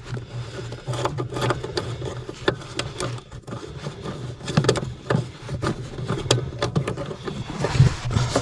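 Irregular plastic clicks, knocks and scraping as hands work at the clutch safety switch and its mounting under the clutch pedal, trying to free it.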